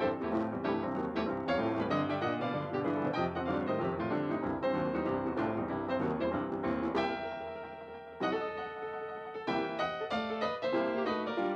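Background piano music: a busy run of notes that eases into a held chord about seven seconds in, then picks up again.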